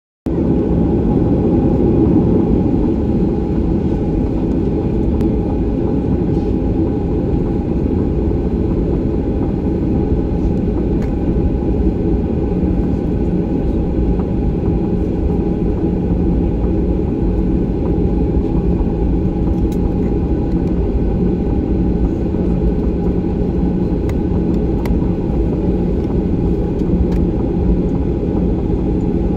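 Steady engine hum and rumble heard inside the cabin of a Boeing 737-800 taxiing, its CFM56 turbofans at low, even thrust with no spool-up.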